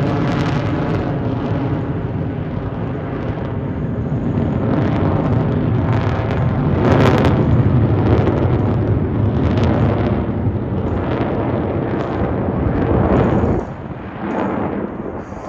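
F/A-18 Super Hornet jet engines roaring in a low pass, with a ragged crackle. The noise swells toward the middle and falls away abruptly near the end.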